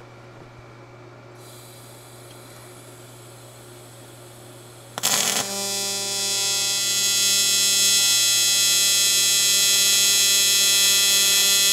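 AC TIG welding arc on aluminum: after a low steady hum, the arc strikes about five seconds in with a brief crackle, then settles into a loud, steady high-pitched buzz. The machine's AC frequency is set high, about 225 Hz, to keep a tight arc.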